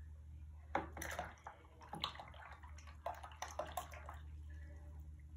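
Paintbrush being swished and rinsed in a water jar: irregular splashing and sloshing with a few sharp taps, most of it in the first four seconds.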